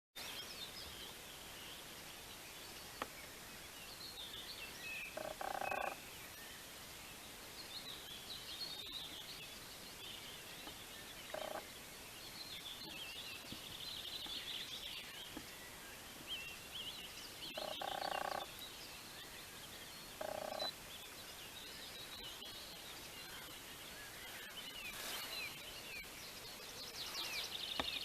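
Evening nature chorus: songbirds chirping and trilling throughout, with short low croaking calls, frog-like, heard four times.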